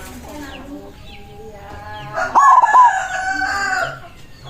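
A white zebra dove (perkutut) calls about two seconds in, a short phrase of clipped cooing notes, overlapped by a rooster crowing in one long call that ends about four seconds in. Small birds chirp faintly.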